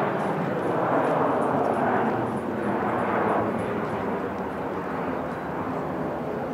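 Airbus A320-200 airliner's twin jet engines at take-off power as it climbs away, a steady, wide rushing noise that slowly fades.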